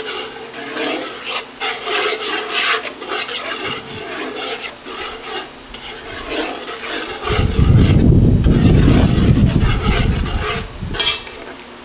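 A spoon scraping and stirring curry paste as it cooks down in a hot pot, in quick, irregular strokes. About seven seconds in, a loud low rumble covers it for roughly three seconds.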